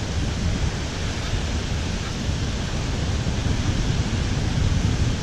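Steady wind rumbling on the microphone, mixed with surf washing on the beach.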